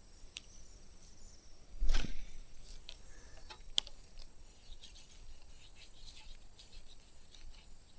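Quiet outdoor background at the water's edge, with a brief whoosh about two seconds in and a single sharp click a little under two seconds later.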